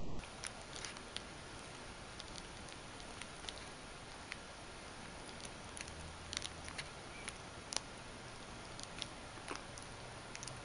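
Light, irregular clicks and small scratches of a kitten playing with a metal bead chain in a woven basket, over a steady hiss.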